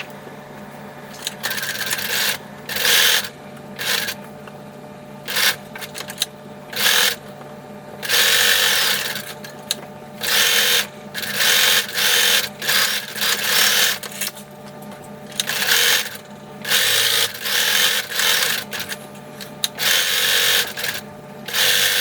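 Sewing machine stitching a fabric seam in repeated stop-and-start runs, some short and some lasting a second or two.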